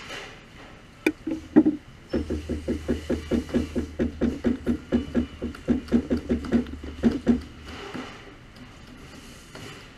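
Chef's knife chopping fresh herbs on a cutting board: a couple of single knocks, then a fast, even run of chops, about five to six a second, for about five seconds before it stops.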